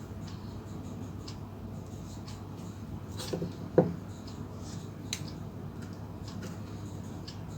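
Small clicks and taps of fingers handling a breadboard, LED and jumper wires, with one sharper knock about four seconds in, over a steady low hum.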